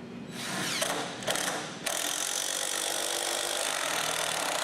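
A 4-inch lag screw being driven into a cedar log leg brace with a ratcheting tool: a mechanical ratcheting whirr that stops and restarts twice in the first two seconds, then runs steadily.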